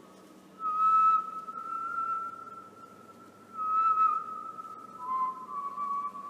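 Ambient background music: a single sustained, high whistle-like tone that swells twice and wavers slightly, stepping down a little in pitch near the end.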